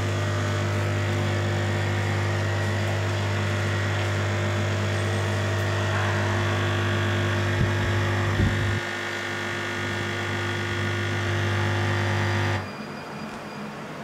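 Nespresso Essenza Mini capsule machine's pump humming steadily as it brews a lungo into a mug. The hum drops a little about two-thirds through, then cuts off abruptly near the end as the extraction finishes.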